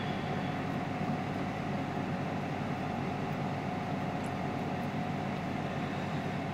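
Steady mechanical hum: one constant mid-pitched tone over an even rushing noise, unchanging in level.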